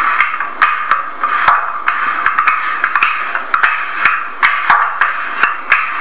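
Recorded sound of homemade pasta dough being worked on a table, played back through a small speaker: a steady rubbing scrape broken by irregular wooden knocks, two or three a second. The listener recognises it as dough rolled out with a rolling pin.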